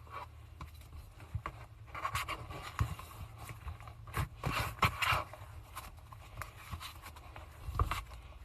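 Slime being pressed and stretched, giving irregular sticky clicks and crackles, busiest in the middle, over a faint steady low hum.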